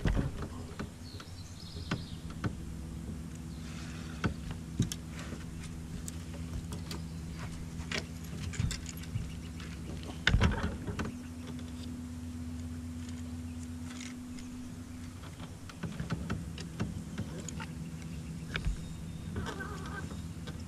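Bass boat's electric trolling motor running with a steady low hum; a higher tone rides on it for a few seconds around the middle. Scattered light clicks and knocks from the boat and fishing gear, the loudest about halfway through.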